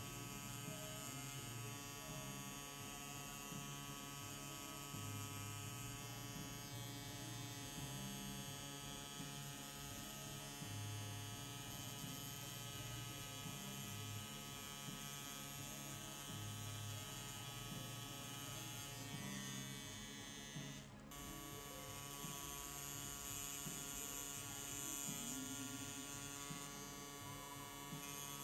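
Xion Pen rotary tattoo machine running with a steady electric buzz while lining skin, with a brief break about three-quarters of the way through.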